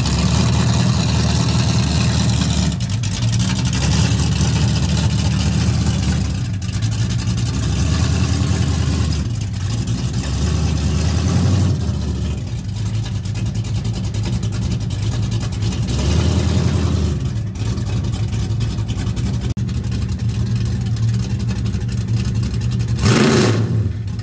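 Small-block Chevy V8 of a 1979 Chevrolet Malibu running loud at idle and revved in short blips several times.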